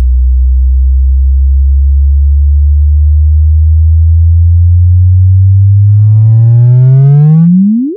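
Sonified space signal: a loud, deep hum that holds steady, then glides upward in pitch, slowly at first and sharply in the last second, and cuts off abruptly near the end.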